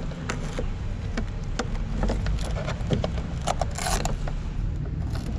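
Handling noise inside an RC speedboat's hull: small plastic clicks, knocks and rustles as hands work the yellow battery connectors and the battery strap, with a short rasp about four seconds in. A steady low rumble runs underneath.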